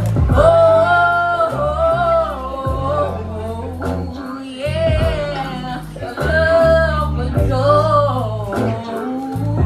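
Live singing of a drawn-out melody over backing music with deep, sustained bass notes.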